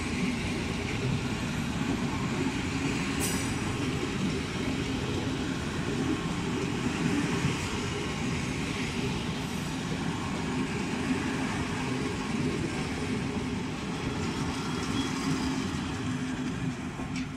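Passenger coaches rolling slowly past on the rails: a steady rumble of wheels on track with a low hum, and one sharp click about three seconds in.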